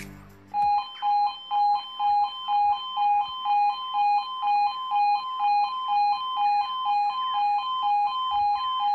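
Level crossing audible warning alarm sounding. It starts about half a second in, with a lower and a higher tone alternating evenly at a little over two pairs a second. It warns that a train is approaching and the barriers are about to come down.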